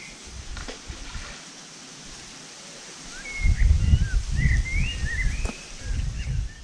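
Wind buffeting the microphone in low rumbling gusts, strongest in the second half. A small bird sings short chirping, sliding notes over it.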